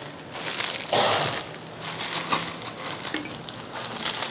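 Plastic instant-noodle seasoning sachets crinkling as they are handled, with a louder rustle about a second in.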